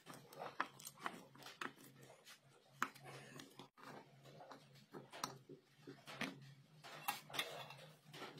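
Faint, scattered clicks of small hand tools on a circuit board: a screwdriver turning a screw, then side cutters snipping a wire, over a faint steady low hum.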